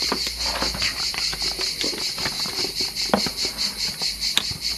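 Insects chirping in a steady high pulsing rhythm, about four pulses a second. Over it come light handling clicks and rustles from the plastic mop parts and cardboard box, with one sharp click near the end.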